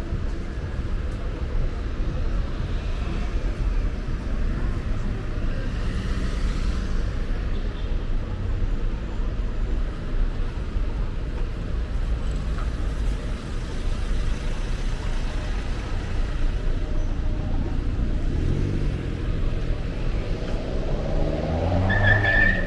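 City street traffic: a steady rumble of passing cars, with one vehicle's engine rising in pitch near the end as it accelerates.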